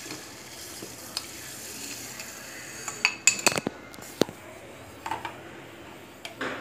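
Sugar poured into a steel pot of water with a soft hiss, then a metal spoon stirring it and knocking against the pot several times, dissolving the sugar for a syrup.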